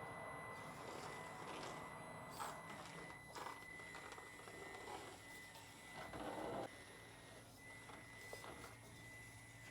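Small RC rock crawler working over rocks, faint: a few light knocks and, about six seconds in, a brief louder scrabble, with a thin steady high tone behind it.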